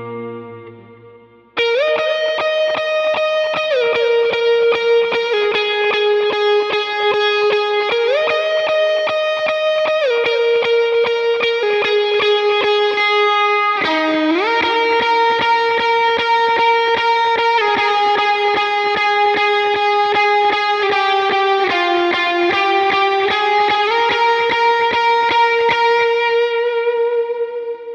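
Stratocaster electric guitar playing long sustained lead notes through delay and modulation effects, sliding smoothly from one note to the next, with a fast even pulse in the sound. The notes start sharply and die away near the end.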